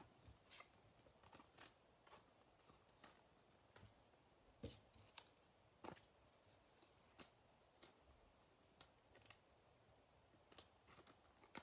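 Faint, irregular clicks and taps of baseball trading cards being handled, sorted and set down on a mat.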